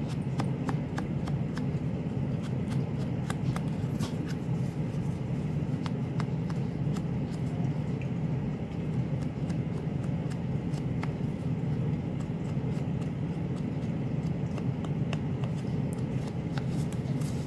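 Mini ink blending tool's foam pad dabbed and rubbed over a card, making soft scuffs and small irregular taps, over a steady low hum.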